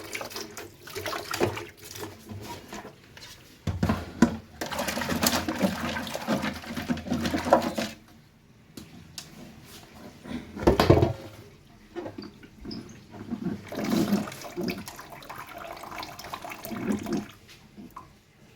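Water running and splashing into an air fryer basket holding a soaking mix of salt, bicarbonate of soda, dish soap and vinegar, coming and going in surges, with a louder burst about eleven seconds in.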